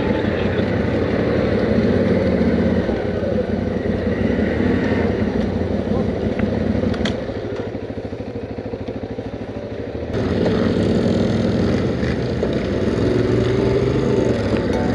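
ATV engines running, the camera quad's own engine close up with other quads around it. About seven seconds in it drops to a quieter, even throb at idle, then changes abruptly to louder engine noise again as the quads move off.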